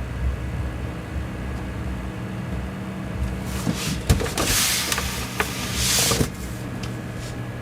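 Seagate Exos X22 22TB enterprise hard drive spinning at 7200 rpm with a steady hum while it reads and writes, copying files onto itself. In the middle there is a louder stretch of scratchy noise with a few sharp clicks.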